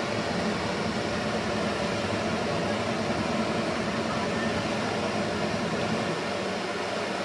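Landslide: rock and earth sliding down a hillside, a steady rumbling noise with no distinct impacts.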